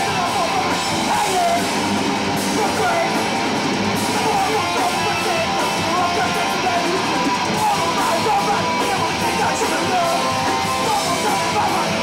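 A hardcore punk band playing live: distorted electric guitars, bass and drums, with the vocalist shouting over them.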